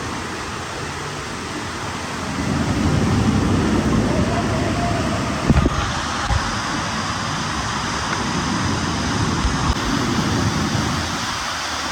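Steady rushing noise of water and wind on the microphone, swelling for a few seconds, with one sharp knock about five and a half seconds in.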